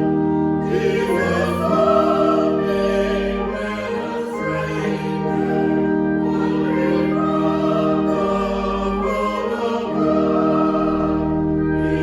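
Choir singing a slow hymn over sustained chords from an accompanying instrument.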